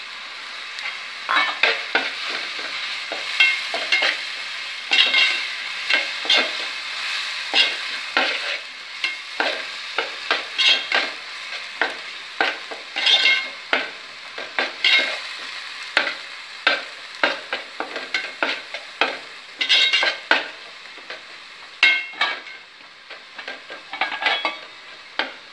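Ground onion-and-spice masala paste with ginger-garlic paste sizzling in hot oil in a metal pot, stirred with a perforated metal ladle that scrapes the pot in quick, irregular strokes over a steady frying hiss. The paste is being sautéed until the oil separates.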